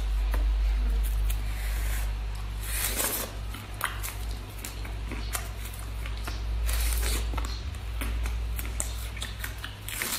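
Cooked prawns' shells crackling and snapping as they are peeled by hand, with the prawns bitten and chewed, over a steady low hum.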